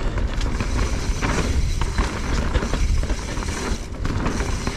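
Specialized Stumpjumper EVO 29er mountain bike rolling along a dirt singletrack strewn with leaves and twigs: the tyres crackle over the litter and the bike rattles, over a low rumble of wind on the action camera's microphone.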